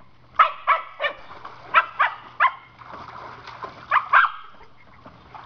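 Dog barking: about seven short, sharp barks, mostly in quick pairs, in a frantic state the owner calls desperation as it stands at the pool's edge, kept out of the water.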